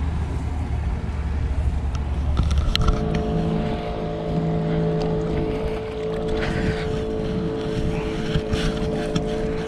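Motorboat engine running steadily nearby: a low hum at first, then from about three seconds in a steady drone with several fixed pitches. A few light clicks and knocks come near the end.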